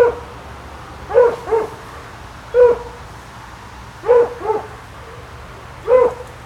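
A dog barking repeatedly, seven short barks in all, some single and some in quick pairs, about every one to two seconds.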